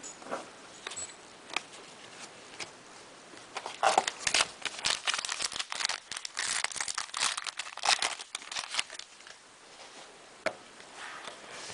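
A trading-card pack wrapper being torn open and crumpled, with a dense stretch of crinkling from about four to nine seconds in. A few scattered rustles and clicks come before and after it.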